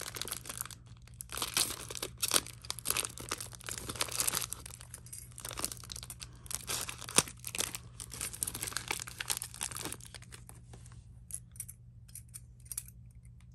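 Thin plastic parts bags crinkling and tearing as they are slit open with a folding knife and handled. The rustling thins out to a few light clicks and crinkles near the end.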